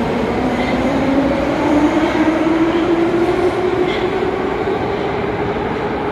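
Ezh3 metro train accelerating out of a station, its motors giving a slowly rising whine over a steady rumble that begins to fade near the end as the train enters the tunnel.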